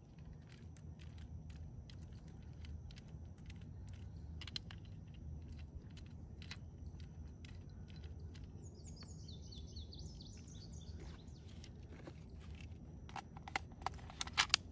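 Light clicks and rattles from handling and loading a PepperBall TCP launcher and its magazine, scattered and then coming quick together near the end, over a steady low outdoor hum. A bird chirps a short descending series about nine seconds in.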